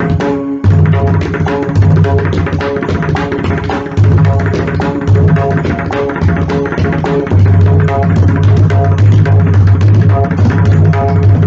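Pakhawaj played solo in Chautal, a fast, unbroken stream of sharp strokes on the right head mixed with deep ringing bass strokes from the left head. The bass strokes come in runs, the longest through the last few seconds.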